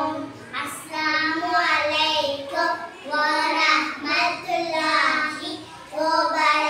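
Two young children singing a Tamil children's song together in unison, line by line, with short breaks between phrases.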